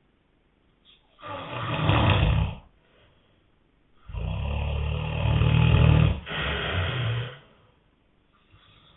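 A man snoring loudly in his sleep: a snore about a second in that swells over a second and a half, then a longer snore of about three seconds with a brief catch partway through.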